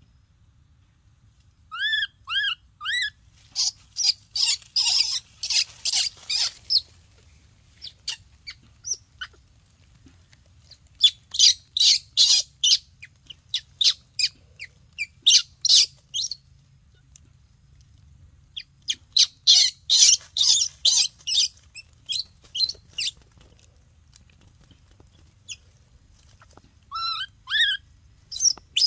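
Baby macaque giving short coo calls, each rising then falling in pitch: three about two seconds in and a few more near the end. Between them come three bouts of rapid, crackly high-pitched bursts, the loudest sounds.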